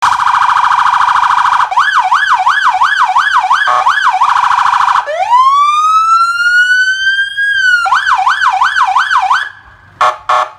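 Electronic emergency-vehicle siren stepping through its tones. It starts on a rapid warble, then a yelp sweeping up and down about three times a second, then a slow rising wail about halfway through, then the yelp again, and ends with two short blips.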